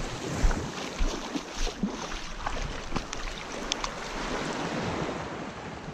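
Shallow seawater sloshing and splashing as someone wades through it and dips a fish into the water, with scattered small splashes over wind on the microphone.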